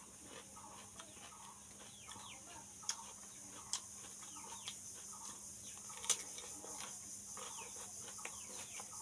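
Chickens calling in the background: a steady run of short falling clucks and peeps. A few sharp crunches stand out louder, from chewing raw cucumber.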